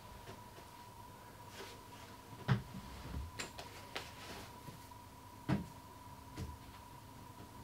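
Faint handling noises: a few scattered knocks and clicks, the two loudest about 2.5 and 5.5 seconds in, over a steady faint high-pitched tone.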